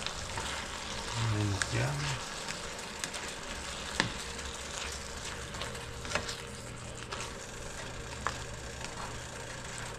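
Ham frying in a cooking pot: a steady sizzle with a few sharp pops.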